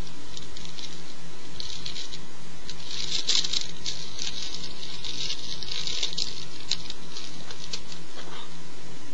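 Small plastic herb grinder twisted by hand, its teeth crunching dry herb with an irregular fine scratchy crackle. The crackle comes in clusters and is busiest from about three to six seconds in, thinning out near the end, over a steady low hum.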